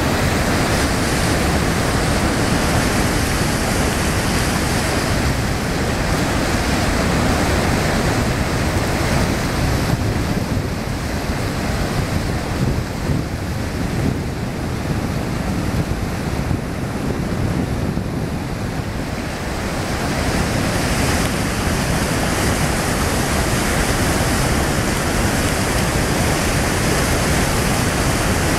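Steady rushing of whitewater: the Niagara River rapids pouring over the brink of Horseshoe Falls, a dense unbroken noise, somewhat duller for several seconds in the middle.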